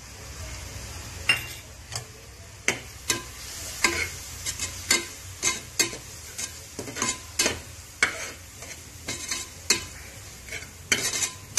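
Metal spoon stirring and scraping a spice masala in an aluminium pressure cooker, clinking against the pot roughly once or twice a second from about a second in, over a faint sizzle of frying in ghee. The freshly added chilli powder and garam masala are being fried into the onion and ginger-garlic paste.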